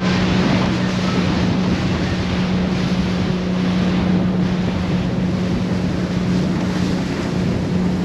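Boat's outboard motor running steadily under way, a constant engine hum beneath the rush of water and wind buffeting the microphone.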